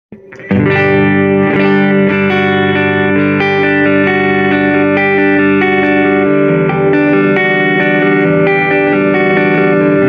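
Grote ST HSS custom electric guitar, a Strat-style guitar with a humbucker and two single-coil pickups, played plugged in: ringing chords and single notes that change every second or so, starting about half a second in.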